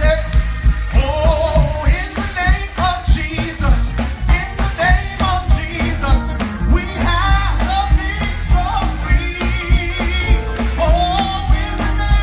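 Upbeat gospel song over loudspeakers: a steady drum beat and bass with a voice singing over it.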